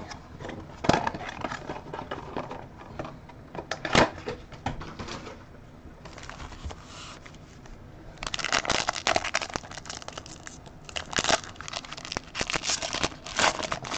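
Plastic wrapping on a sealed box of baseball cards crinkling, crackling and tearing as the box is opened. The crinkling is sparse at first and gets busier about eight seconds in.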